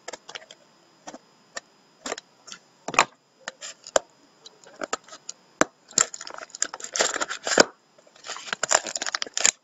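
Plastic shrink wrap being cut and peeled off a sealed trading card box: scattered sharp crackles and clicks, growing into busier bouts of crinkling in the last few seconds.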